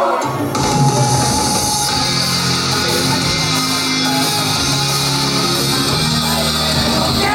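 Loud rock instrumental with electric guitar over bass and drums and no singing. The sound grows fuller and brighter about half a second in and again about two seconds in.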